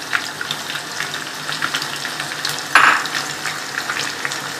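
Onions frying in hot oil for a baghar (tempering), a steady crackling sizzle with many small pops as they start to brown. A short louder burst of sizzle comes about three seconds in.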